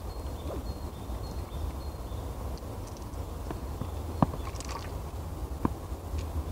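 Eurasian red squirrels clambering over a wooden feeder, their feet and claws knocking sharply on the wood twice, about four and five and a half seconds in, over a steady low rumble.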